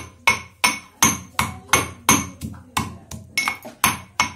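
Pestle pounding onion, garlic, ginger and whole spices in a metal mortar: a steady run of ringing metal-on-metal strikes, about three a second.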